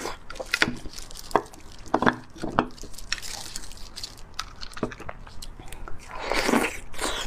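Close-miked wet mouth sounds of eating spicy beef bone marrow: a run of short smacks and clicks, then a longer loud slurp about six seconds in as marrow is sucked from the bone.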